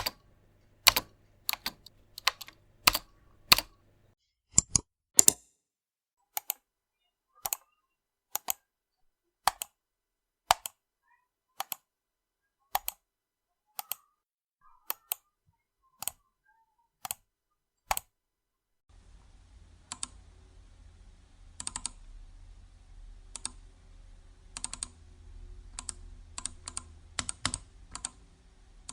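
Click sound effect: sharp single clicks, mostly about one a second. About two-thirds of the way in, a low hum comes in and the clicks come in quicker clusters.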